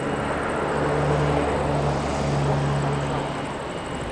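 Distant jet engine noise from an Airbus A330neo on the runway: a steady, hazy rumble with a low hum that swells a little in the middle.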